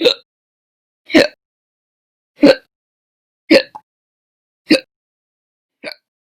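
A woman hiccuping loudly in a steady run, six sharp hiccups a little over a second apart, the last one fainter.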